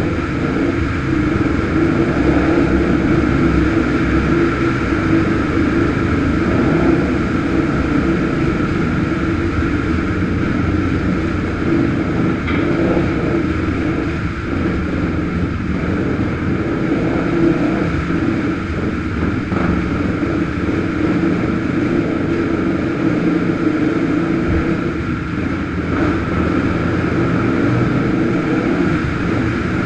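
ATV engine running steadily at a fairly constant speed while riding along a trail.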